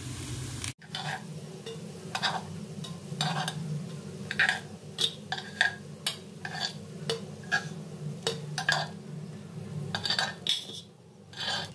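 Metal spoon scraping and clinking against the cups of an appe pan as cooked appe are prised out one by one, with a steady low hum underneath.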